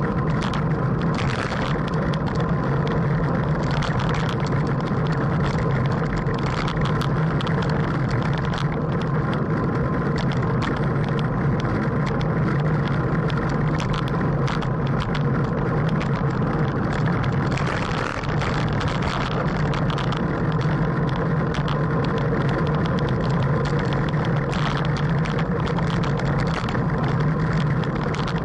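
Steady wind rushing over the microphone of a camera mounted on a road bicycle riding at about 16 mph, with a constant low hum and scattered clicks and rattles from road vibration.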